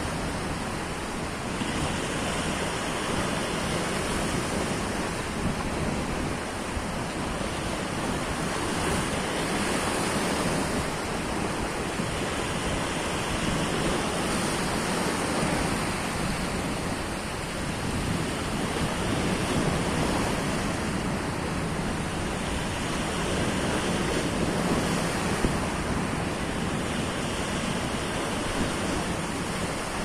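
Sea waves washing and breaking against a rocky shore ledge: a steady surf rush that swells and ebbs every few seconds.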